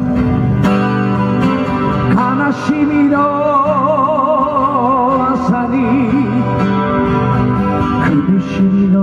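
Live song with guitar accompaniment and a melody line held in long notes with a wavering vibrato.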